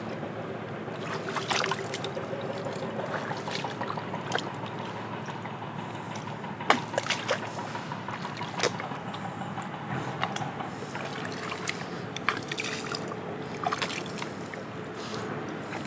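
Bare feet wading through shallow water and soft mud, with irregular splashes and squelches over a steady background hiss.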